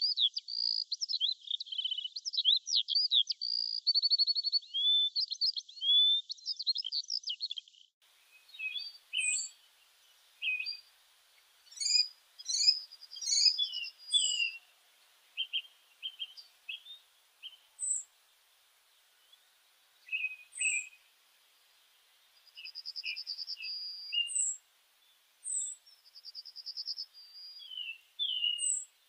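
Birds chirping and calling. A dense stream of high chirps and whistles runs for about the first eight seconds and stops abruptly, followed by scattered single calls and short trills.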